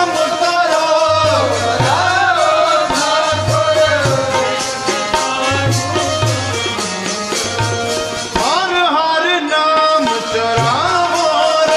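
Sikh kirtan: a shabad sung to harmonium and tabla. The harmonium holds steady reed tones under a wavering singing voice, while the tabla keeps a steady rhythm with deep bass strokes and sharp treble strokes.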